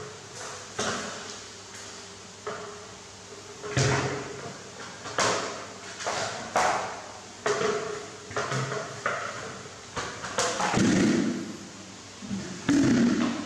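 A plastic washbasin knocked, tipped and scraped over a tiled floor: a dozen or so irregular knocks and clatters, with longer scraping noise near the end.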